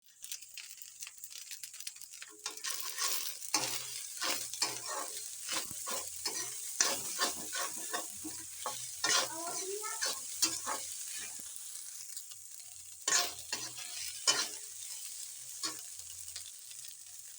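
A leftover-rice snack frying in a pan with a steady sizzle, while a spatula stirs and scrapes against the pan in repeated strokes, busiest through the first half and again briefly about three quarters of the way in.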